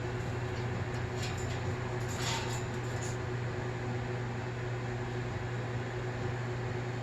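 Steady low machine hum, like a fan or household appliance, with a few light clicks and a short scratchy rustle about two seconds in.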